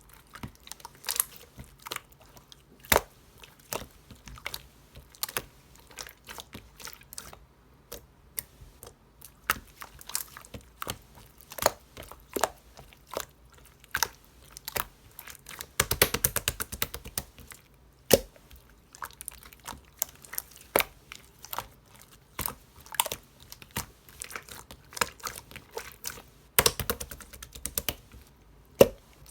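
Clear slime being handled and pressed, giving irregular sharp clicks and pops. Two longer runs of dense crackling come about halfway through and near the end.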